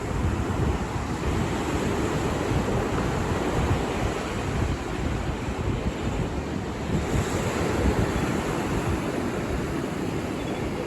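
Ocean surf washing onto a sandy beach in a steady rush, with wind buffeting the microphone.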